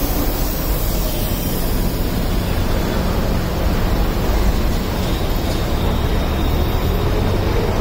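Steady rumble and hiss of road traffic, strongest in the low end.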